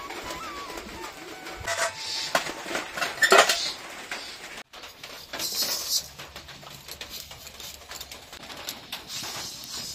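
Metal bowls, plates and pots clinking and clattering as they are handled, loudest about three seconds in and again a little after the middle, with lighter clicks of metal on metal after that.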